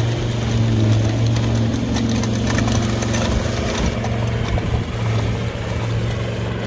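A farm vehicle's engine running steadily, with scattered light clicks.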